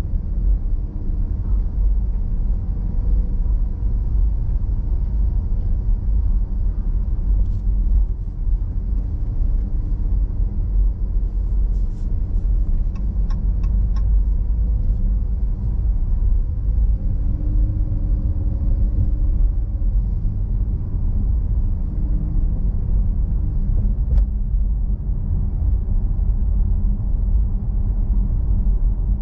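Car driving at moderate speed: a steady low road and engine rumble heard from inside the car, with a few faint clicks around the middle and once more later on.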